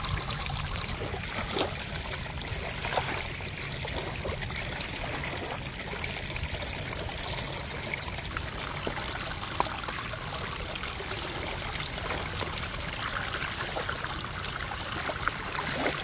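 Water pouring steadily down a pump-fed aluminium sluice box, washing sand over its riffle mats, with a few light ticks.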